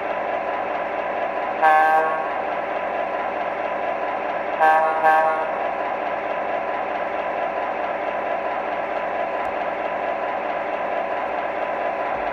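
MTH Premier E8 O gauge diesel locomotive's onboard sound system playing a steady running sound. Over it the horn sounds once, then twice more close together about three seconds later.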